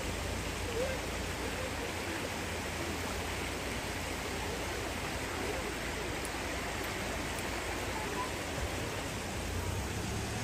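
A rocky mountain stream rushing steadily over stones: a constant, even wash of water noise.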